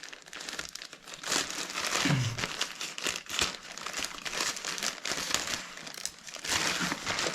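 Packaging being opened by hand: irregular crinkling and rustling of wrapping as a parcel is unwrapped.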